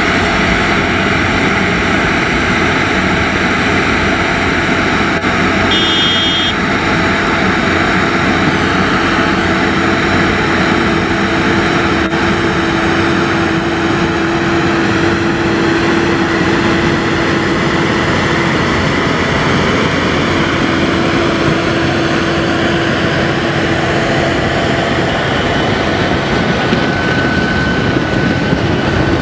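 Challenger MT765D rubber-track tractor working under load, its engine running steadily while the towed rotary plough churns through dry soil. A steady whine rises out of the noise through the middle.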